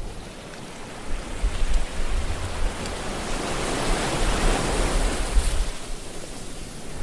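Ocean waves rushing and surging, a steady wash of water over a low rumble. It swells to its fullest about two-thirds of the way in, then eases.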